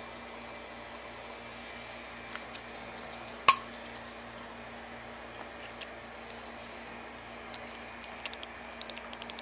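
Small plastic clicks and ticks of a bottle cap and oral syringe being handled while liquid is drawn up, with one sharp click about three and a half seconds in and a scatter of light ticks toward the end. A steady low hum runs underneath.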